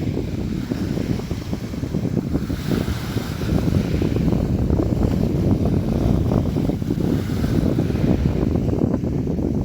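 Sea waves splashing and washing, a continuous rush of surf that swells briefly about three seconds in.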